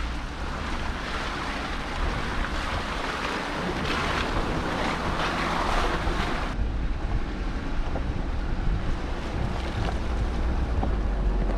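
Jeep driving slowly along a dirt back-country road: a low engine and drivetrain rumble under a steady rush of wind and tyre noise. The higher hiss drops away suddenly about six and a half seconds in, leaving the rumble.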